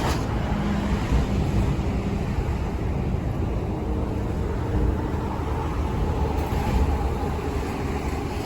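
Mazda NC Roadster (MX-5) engine idling steadily with a gritty, grinding rattle. It is an abnormal noise whose source the owner cannot pin down: the air-conditioning, timing belt or chain, or water pump are the suspects.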